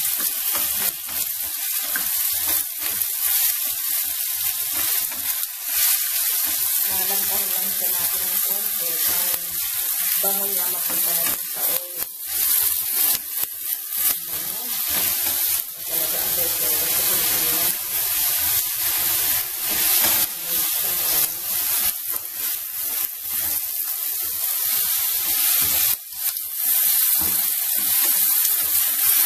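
Red and green bell pepper pieces sizzling in hot oil in a stainless steel frying pan, with a spatula scraping and knocking against the pan as they are stirred.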